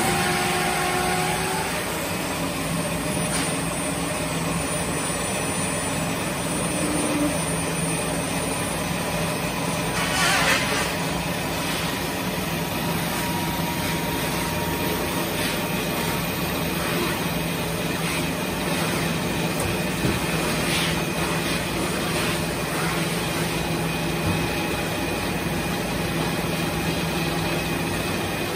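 Industrial machinery running with a steady hum, with a short hiss about ten seconds in and a fainter one about twenty seconds in.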